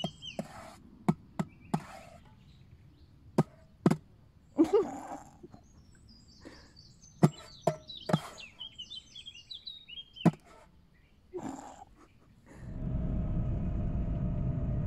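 Birds chirping, with about ten sharp clicks or taps at irregular intervals. Near the end this gives way to the steady road and engine noise of a car being driven.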